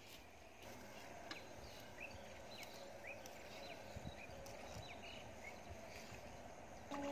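Faint open-air ambience with a series of short, high bird chirps scattered through it and a few light clicks. Near the end a louder, steady pitched sound begins.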